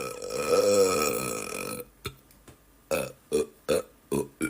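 A man's long, drawn-out burp that ends just under two seconds in, followed by a quick string of about seven short burps, roughly two to three a second.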